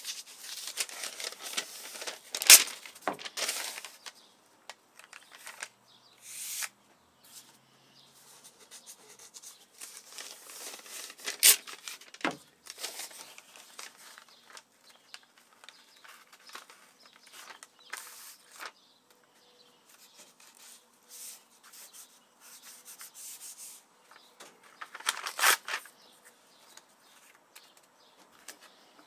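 Paper rustling and crinkling as a sheet is handled and laid over a glued wooden board, with a few sharp knocks of pieces being handled. The loudest knock comes about two and a half seconds in.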